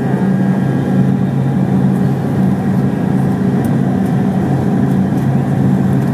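Jet airliner's engines at takeoff power during the takeoff roll, heard from inside the passenger cabin: a loud, steady rush of noise with a low hum beneath it.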